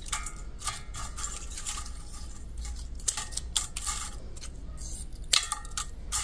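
Dried arugula stems and seed pods crackling and rustling as they are broken up and moved by hand in a stainless steel colander, with a string of short sharp snaps and clicks, one louder than the rest about five seconds in.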